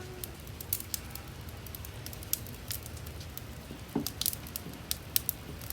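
Wood fire in a fireplace crackling, with irregular sharp pops.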